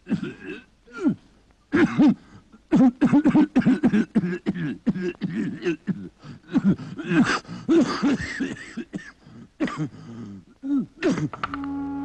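A voice making a rapid, irregular string of short coughing, gasping and groaning sounds, dense and loud through most of the stretch. Near the end a steady held music chord comes in.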